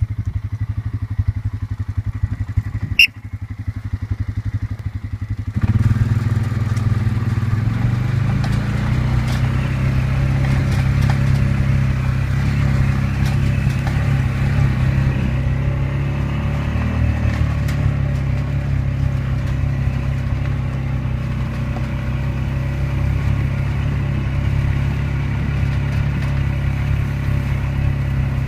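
A vehicle engine idling with an even pulse, then running steadily and louder from about six seconds in. A short high rising squeak sounds about three seconds in.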